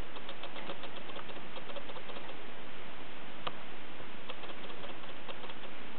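Kittens' claws pattering on a hard floor in bursts of quick light ticks as they play, with one sharper click midway, over a steady hiss.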